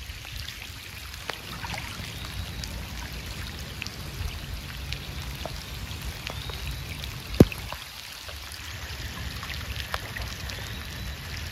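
Steady rush of water with scattered small ticks, and one sharp click about seven seconds in.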